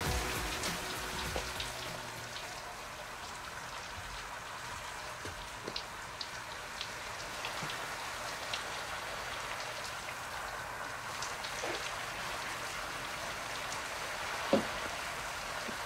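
Shower running: a steady hiss of falling water, with a few faint ticks and one soft thump near the end.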